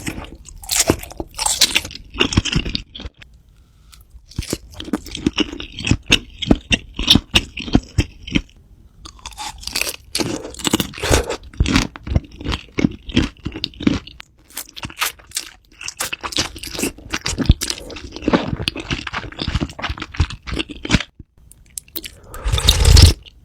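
A person biting and chewing crunchy food right at the microphone, in runs of sharp crackling crunches separated by short pauses, with a louder, fuller crunch burst near the end.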